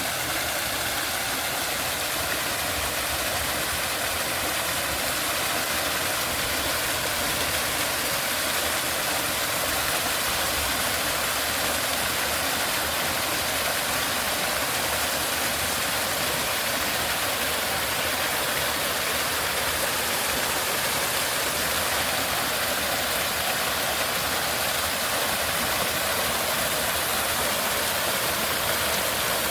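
Garden waterfall: water pouring and splashing in a steady, even hiss.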